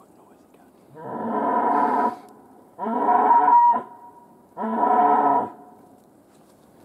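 Wapiti–red deer hybrid (wap) stag giving three rutting calls, each about a second long, with a thin whistling tone trailing briefly after the second.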